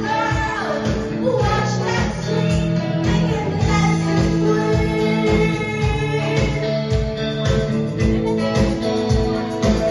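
A song with singing over guitar and a steady drum beat of about two beats a second.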